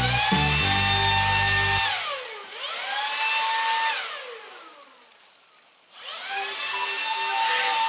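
Makita cordless leaf blower running at full speed with a high whine and rush of air. It drops and picks up again about two seconds in, then spins down almost to silence when the trigger is let go, and spins back up to full speed about six seconds in.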